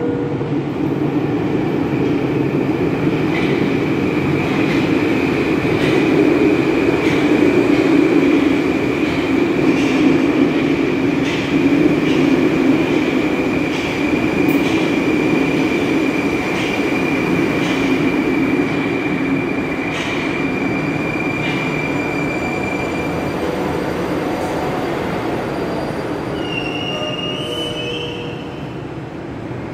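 Moscow Metro 81-765.4/766.4/767.4 "Moskva-2019" train pulling into the station and slowing to a stop. It makes a loud rumble with regular clicks from the wheels and a steady high whine that fades out about two-thirds of the way through. A few short high tones come near the end as it halts.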